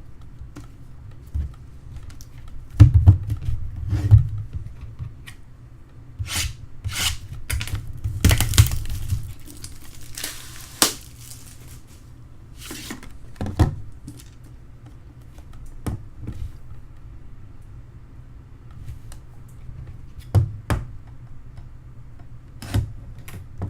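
A sealed trading-card box being unwrapped and opened by hand: plastic wrap tearing and crinkling, with scattered thunks and taps from the cardboard box.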